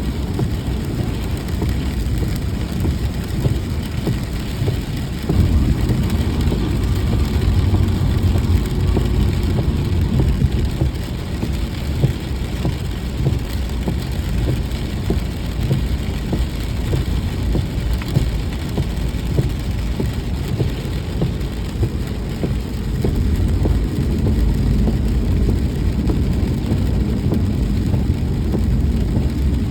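A car driving in the rain: steady low road and engine rumble with the hiss of rain, a little louder from about five seconds in.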